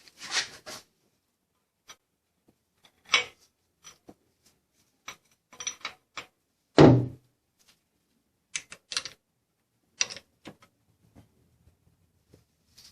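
Scattered metallic clicks and knocks of hand tools working on the engine's camshaft sprocket bolts, with one heavier thunk a little past halfway.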